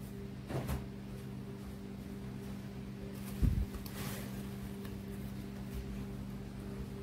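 A plastic mixing bowl covered in cling film being handled and shifted on a table: a short crinkle of the film about half a second in, a dull knock of the bowl around three and a half seconds, then another brief rustle. A steady low hum runs underneath.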